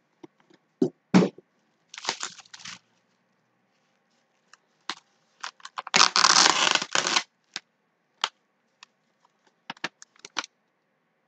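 Paper packaging rustling and crinkling as it is handled, with a few knocks and scattered clicks. The longest, loudest rustle comes about six seconds in and lasts about a second, and a sheet of paper is unfolded with short crinkles near the end.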